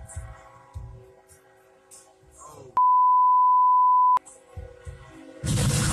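A train horn sounds a chord of steady notes, broken about three seconds in by a loud pure censor bleep. Near the end a loud crash and grinding roar break out as the train strikes a truck towing an armored vehicle across the crossing.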